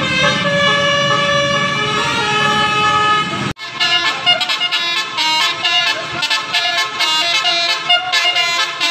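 Basuri multi-tone musical vehicle horns sounding long held chords over engine rumble. After a sudden cut about a third of the way in, a horn plays a quick, rhythmic melody.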